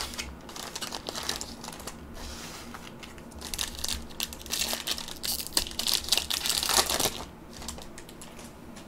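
Plastic foil wrapper of a Panini Prizm basketball card pack crinkling as it is torn open by hand. The crackling is loudest in the middle few seconds and dies down about seven seconds in.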